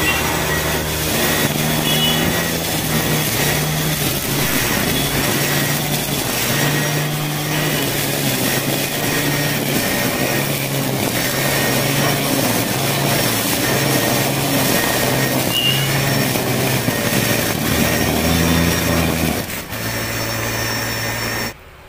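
Electric motor of a homemade grass cutter built from a 680-watt angle grinder, running steadily while it cuts weeds. The sound drops away suddenly shortly before the end.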